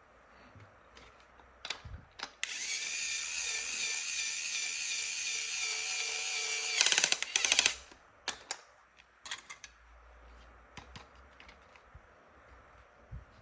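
Toy electric drill running with a steady whine for about four seconds, then a loud rapid clicking rattle for about a second before it stops. Scattered plastic clicks and taps from handling come before and after.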